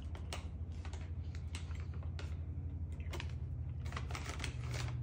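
Plastic gummy-candy bag crinkling in quick irregular crackles as a hand rummages inside it for a gummy, over a low steady hum.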